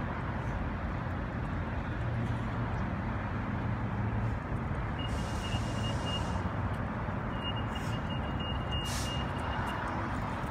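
Steady outdoor rumble and hiss. From about halfway through, a thin, high, steady tone sounds for about five seconds, breaking off briefly a few times.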